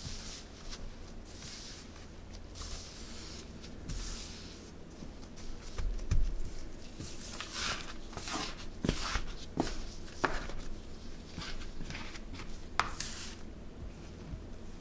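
Crumbly scone dough being pressed together by gloved hands and cut with a metal bench scraper: rustling and crumbly pressing, a dull thump about six seconds in, then sharp ticks as the scraper blade meets the countertop.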